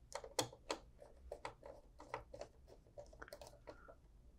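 Faint, irregular clicks and scrapes of a screwdriver turning the screws of a screw terminal block, tightening wires into a power supply board's terminals.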